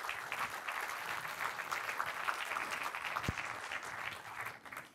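Audience applauding: a dense, even patter of many hands clapping that thins out and fades near the end.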